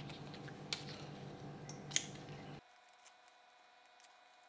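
Kaffir lime leaves being torn by hand: a few short, crisp snaps about a second apart, fainter ones near the end. A low background hum cuts out partway through.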